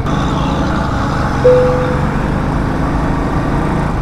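Motorcycle engine running at road speed, with wind and road noise, and a short single-tone horn beep about one and a half seconds in.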